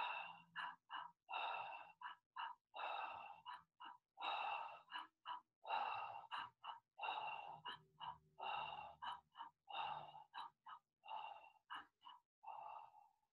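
A woman breathing rapidly and forcefully in and out through her mouth, a quickened 'fire' breathwork pattern. Quick sharp breaths mix with longer ones in a steady repeating rhythm, stopping just before the end.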